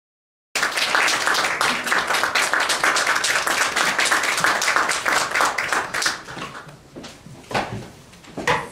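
Audience applauding: a dense patter of many hands clapping that starts abruptly about half a second in and dies away after about six seconds, followed by a few scattered knocks.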